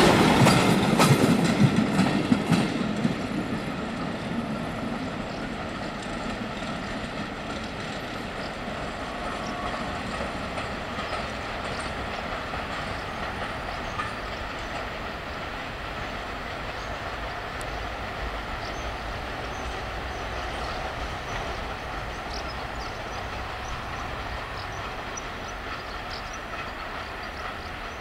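Wagons of a work train rolling past close by, wheels clicking over the rail joints; the sound fades over the first few seconds as the last cars go by, leaving a steady, fainter rumble of the train moving away down the line.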